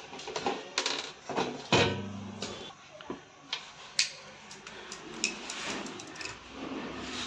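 Metal parts and screws clinking and knocking as they are handled, a run of irregular sharp clicks and clanks.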